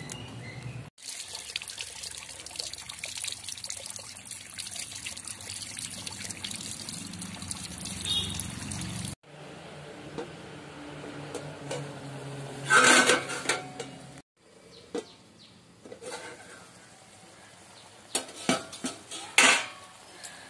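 Water running with a steady hiss for several seconds, then a metal pan clattering, and later a spatula knocking sharply against a metal wok a few times.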